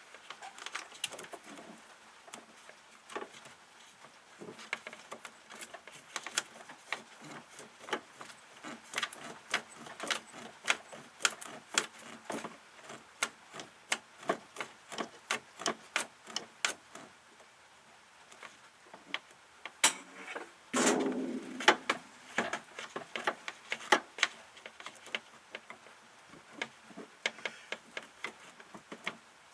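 Irregular sharp clicks and clinks of hand tools working on car parts, a few a second. A louder stretch of scraping and knocking comes about two-thirds of the way through.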